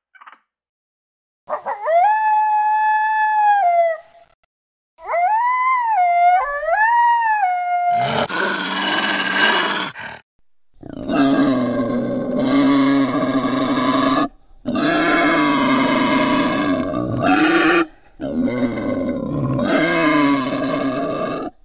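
Made-up creature sound effects: two high, whining howls, the second wavering up and down in pitch. Then a raspy growl and three long, deep roars with brief gaps between them.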